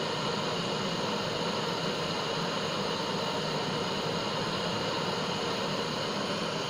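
Gas torch flame burning with a steady, even hiss.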